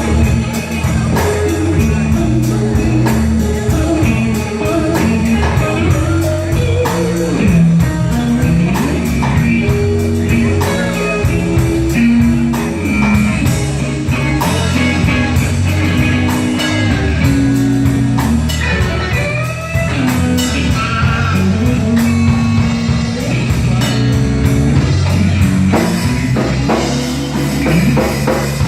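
A live blues trio playing a slow blues: electric guitar with bent notes over electric bass and a drum kit.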